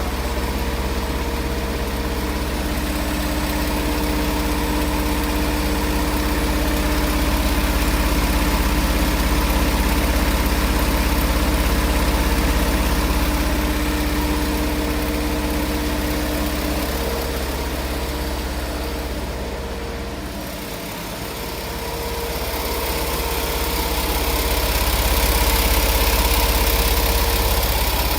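Multi-needle quilting machine running steadily, a dense mechanical hum with a few steady tones. The level dips briefly about two-thirds of the way through, then picks up again.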